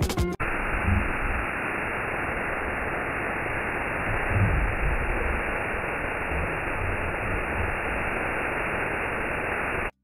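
Background music cuts off about half a second in, giving way to the steady rush of a waterfall pouring down a steep rock face; the water sound stops abruptly just before the end.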